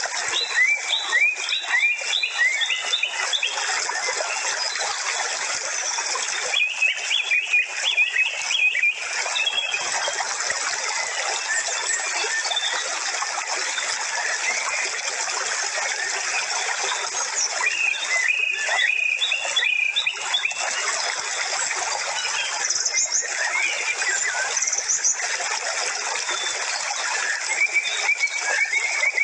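Birds chirping in short clusters of quick rising and falling notes that come and go every several seconds, over a steady, dense hiss.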